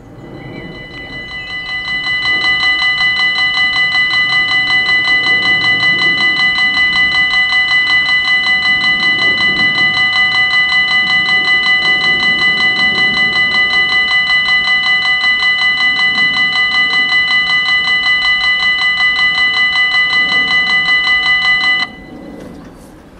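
Belgian level-crossing warning bell ringing with fast, even strokes, warning that a train is approaching. It swells up over the first couple of seconds, then stops abruptly about 22 seconds in, once the barriers are down.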